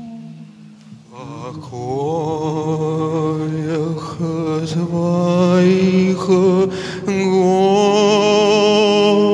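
Sung devotional chant: a voice holding long notes with a wavering vibrato over a steady low tone, coming in louder about a second in.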